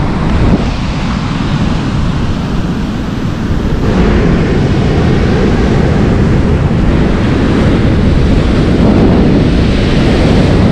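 Sea surf breaking and washing up a beach, with wind rumbling on the microphone; the wash grows a little louder about four seconds in.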